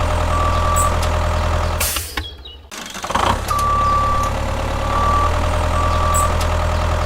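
Vehicle reversing alarm beeping about once a second over a steadily idling engine. The sound cuts out briefly about two seconds in, then resumes.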